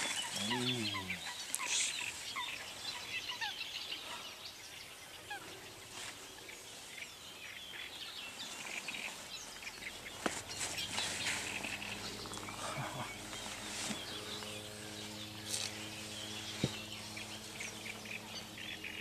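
Outdoor bird chorus: many short chirps and calls throughout, with a low wavering call near the start. About halfway a low steady hum joins in.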